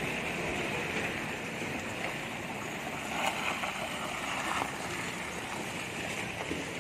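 Vehicles passing on a wet, potholed road: steady tyre and engine noise with water hiss. It swells briefly a little after the midpoint as a pickup truck drives through the puddles close by.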